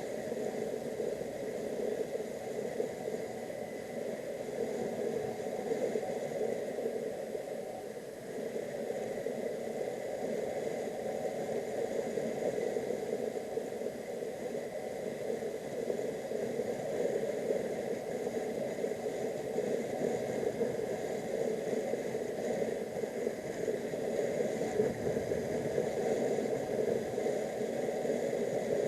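Motorcycle on the move, heard from an onboard camera: a steady rush of wind and road noise with the engine running underneath. The level dips briefly about eight seconds in.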